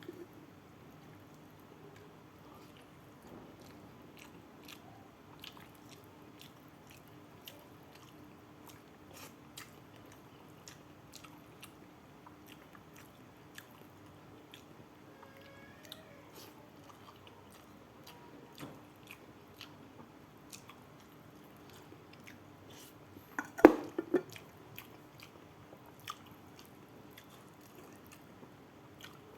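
Close-miked chewing of a mouthful of rice with sambal: soft, wet mouth clicks and smacks repeating throughout over a faint steady hum. Near the end comes one brief, louder knock or clatter.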